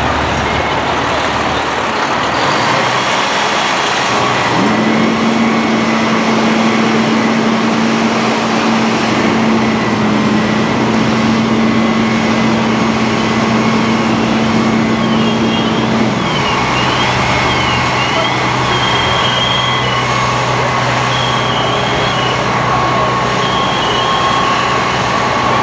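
Aerial ladder fire truck's engine running steadily while parked with its ladder raised, a constant loud drone. A held humming tone joins about five seconds in and slides down and stops about sixteen seconds in.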